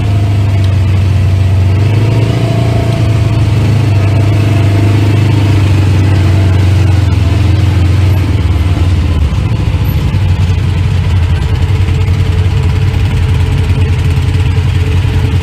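Side-by-side utility vehicle's engine running under way on a dirt trail, heard from inside its cab: a loud, steady low drone over a broad rushing noise, its pitch shifting a little with speed.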